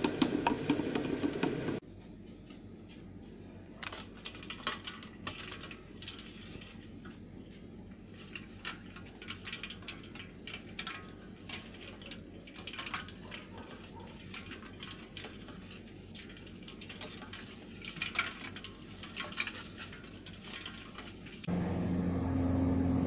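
A spatula scraping and rustling through crushed lemongrass in a glass bowl, stopping about two seconds in. Then scattered light clinks and taps of ice cubes against a steel saucepan sitting in a steel bowl of ice water. Near the end a louder steady low hum sets in.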